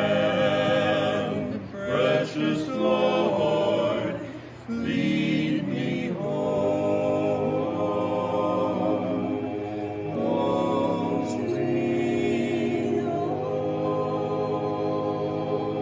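Mixed vocal quartet, one woman and three men, singing a cappella in harmony, with long held chords through the second half.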